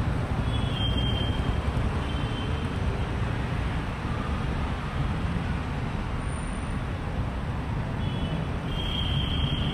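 City street traffic: a steady rumble of passing engines and tyres, with a few brief high-pitched tones over it, the longest near the end.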